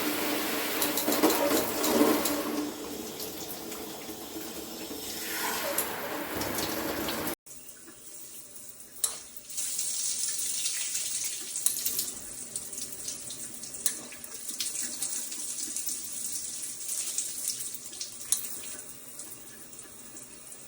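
Water spraying from a Cobbe filtered handheld shower head, running steadily. About seven seconds in the sound cuts off abruptly and comes back as a thinner, hissier spray.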